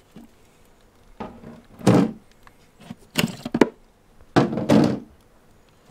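Hard plastic ice packs being lifted out of a plastic chilly bin, clunking and scraping against its sides in several short bursts with quiet gaps between.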